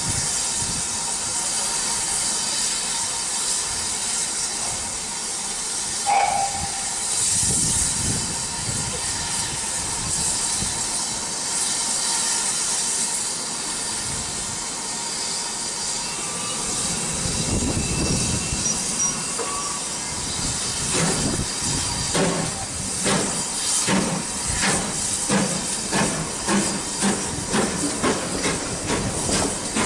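GWR 4575 class 2-6-2 prairie tank steam locomotive starting its train: a steady hiss of steam from its open cylinder drain cocks, with a short high note about six seconds in. From about twenty seconds in, the exhaust beats come through as a regular chuffing, about two a second, as it pulls away.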